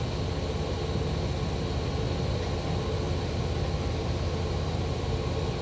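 Truck engine idling steadily, a continuous low rumble.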